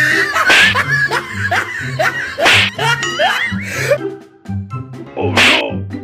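Comedic background music with a steady bass beat and a run of short rising pitch slides, with laughter over it.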